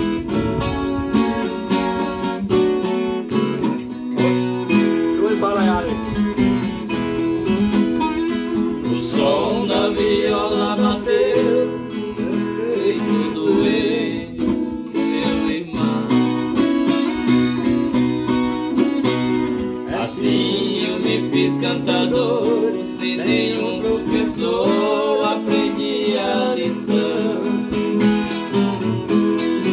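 Instrumental intro of Brazilian caipira country music, led by plucked and strummed viola caipira and guitar, with a gliding melody line in several passages.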